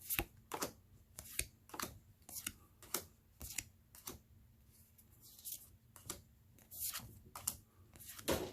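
Board game cards being flipped and laid down one after another, each giving a short papery slap or snap, about two a second.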